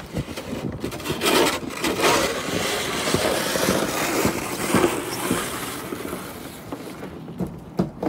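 A snow shovel scraping and pushing through snow, a rough noisy sound that fades away over the last couple of seconds.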